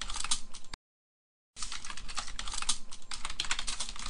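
Keyboard typing sound effect: rapid key clicks in a short run that stops under a second in, then after a pause of about a second a longer run of fast clicks.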